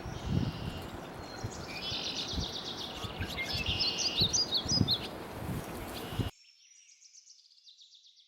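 Songbirds singing with high chirping phrases over low rumbling background noise. About six seconds in the background noise cuts off suddenly, leaving a faint series of high notes.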